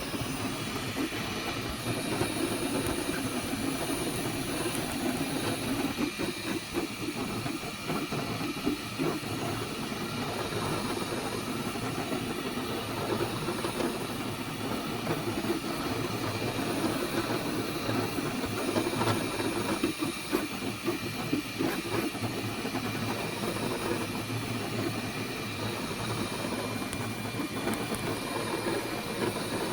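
FlashForge Adventurer 5M 3D printer running a print: a steady hiss of its cooling fans with the whir of the motors moving the print head.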